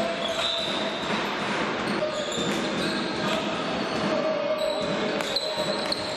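Indoor field hockey play on a wooden gym floor: a string of sharp clicks and knocks of sticks striking the ball and the ball hitting the floor and boards, echoing in the hall.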